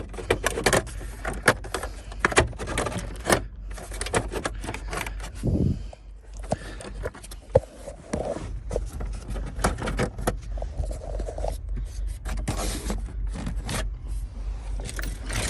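Irregular clicks, taps and scrapes of hand tools and plastic trim being handled at a steering column, with a steady low rumble underneath.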